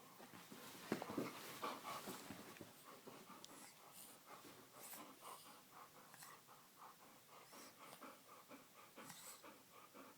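Dog panting quickly and rhythmically, faint, with some louder snuffling and movement sounds in the first couple of seconds.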